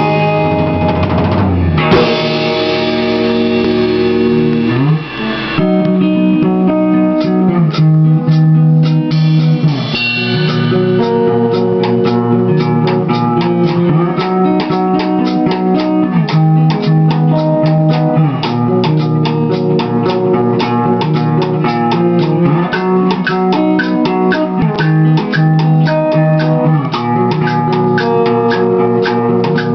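Metal band playing live: distorted electric guitar riffing over a drum kit. A chord rings out for the first few seconds, then the guitar riffs over a steady, fast drumbeat.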